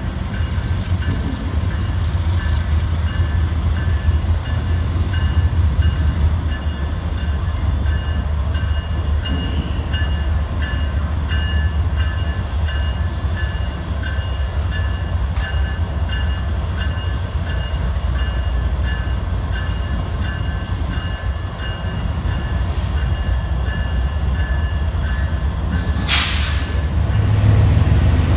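Union Pacific diesel locomotives rumbling steadily as a train moves through the yard, with a high tone repeating about once a second over the rumble. A short sharp hiss comes near the end.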